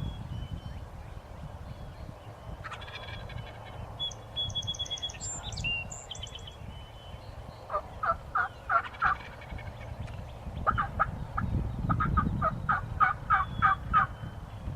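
Wild turkey calling: two runs of evenly spaced notes, a short run about eight seconds in and a longer one of about a dozen notes from about ten seconds in. Fainter high songbird chirps come earlier, over a low rumble.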